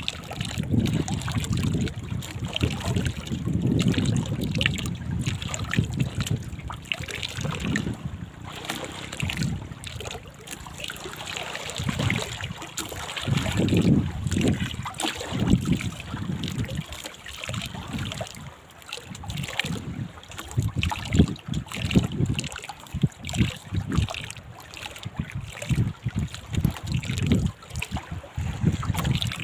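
Wind buffeting the microphone in irregular gusts, over water lapping and trickling against a small boat's hull.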